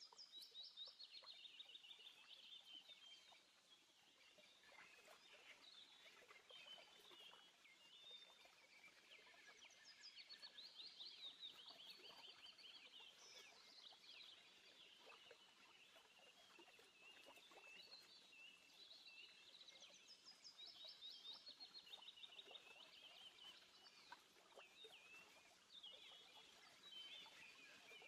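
Faint birdsong: small birds chirping and trilling in phrase after phrase, over a light steady hiss.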